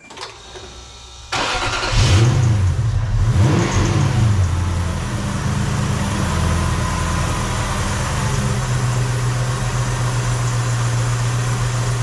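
Lexus 1UZ-FE V8 cranking briefly on the starter, then catching about a second and a half in. It flares up in revs and settles into a steady idle, firing up this time despite the intermittent crank-but-no-start fault.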